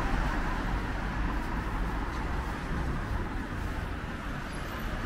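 Steady low rumble of street noise, like distant road traffic, easing slowly in level.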